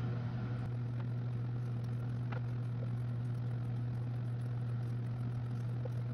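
A steady low hum at an even level, with two faint light ticks about one and two seconds in.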